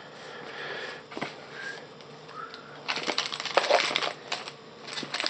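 Foil wrapper of a 2007-08 Topps Chrome basketball card pack crinkling and tearing as it is ripped open: a dense crackle for about a second and a half, starting about three seconds in. Before it come light handling rustles and a single click.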